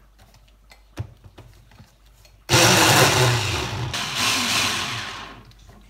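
A few light clicks as a hand blender's motor unit is fitted onto its chopper bowl, then about two and a half seconds in the chopper motor starts suddenly and runs for about three seconds, whirring through a tomato-onion chutney mixture before dying away.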